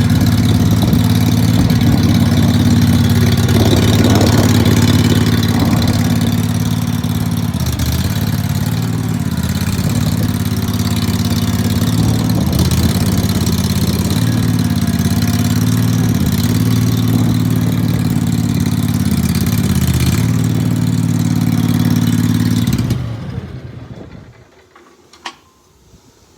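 Teramite compact loader's engine running steadily, then shut off about 23 seconds in and dying away. A single sharp click follows shortly after.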